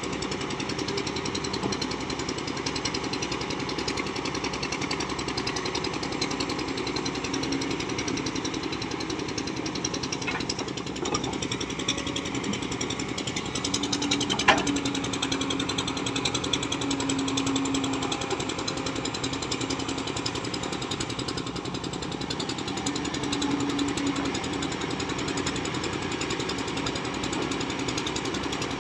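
Kobelco SK200-10 excavator's diesel engine running steadily, a dense rapid clatter. A faint hum comes and goes, and there is one sharp click about halfway through.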